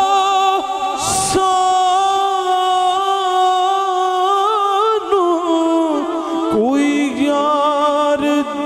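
A man singing a Punjabi Sufi kalam in a long melismatic passage, holding ornamented notes. He drops to a lower held note about five seconds in. A brief burst of noise sounds about a second in.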